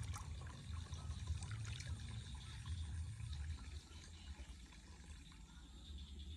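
Water splashing and trickling in a plastic basin as a hand scoops it up and pours it over a bathing baby monkey; the splashing eases off about four seconds in.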